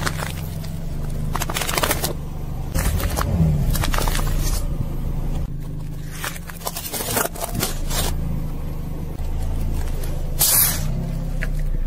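A car tyre rolling slowly over plastic packets and toys and crushing them: a string of crackles, crunches and pops over a low engine rumble, with the loudest burst near the end as an inflatable toy duck is squashed.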